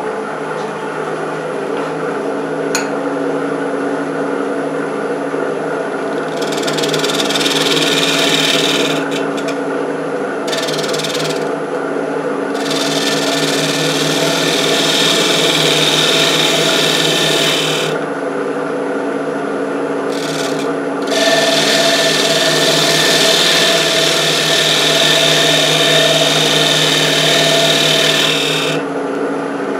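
Wood lathe running steadily with a low hum while a hand-held turning tool skims the wooden base of the spinning urn. The cutting noise comes in several passes: it starts about six seconds in, breaks off twice for a few seconds, and stops just before the end while the lathe keeps running.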